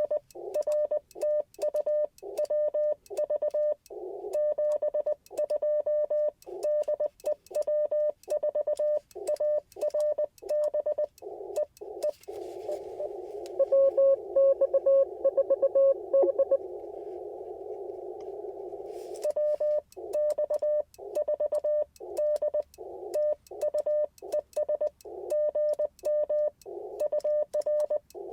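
Morse code (CW) from an Icom IC-705 ham radio transceiver: fast keyed dits and dahs at one steady pitch over a narrow band of receiver hiss. For a few seconds near the middle the code comes louder and at a slightly lower pitch.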